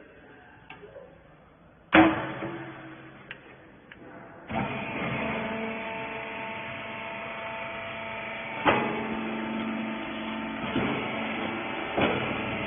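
A loud metal clank about two seconds in, then a steady machine hum with several held tones, from a rag baler, starting a couple of seconds later. Two more clanks come over the hum.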